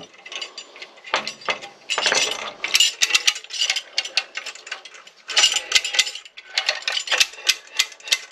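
Lever-operated ratchet hand winch with a double ratchet wheel being worked by hand: quick metallic clicking of the pawls over the ratchet teeth, in several bursts, mixed with clinks of the steel parts.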